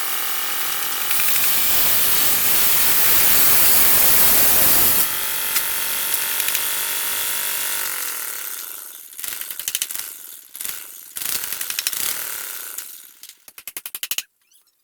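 Electric woodworking power tool running with a steady whine, then switched off about eight seconds in, its motor winding down in pitch. Short bursts of clatter and a quick run of clicks follow.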